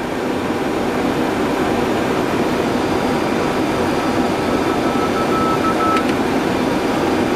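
Steady flight-deck noise of a Boeing 737-800 on final approach: the even rush of airflow and air-conditioning. About five seconds in, a faint beeping tone at the pitch of the ILS middle-marker beacon sounds for a little over a second, then stops with a small click.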